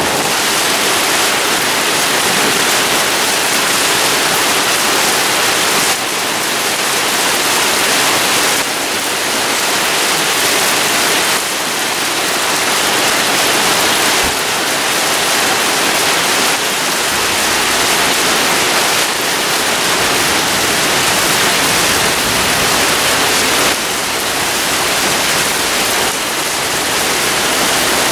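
Marble-sized hail and heavy rain pelting the ground in a dense, loud, steady hiss.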